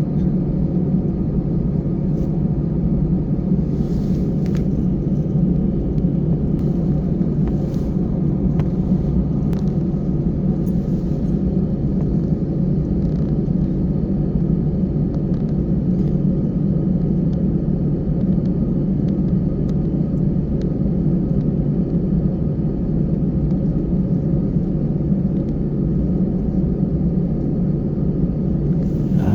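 Steady low rumble of an airliner's engines heard from inside the cabin while the plane is still on the ground, with a few faint clicks in the first dozen seconds.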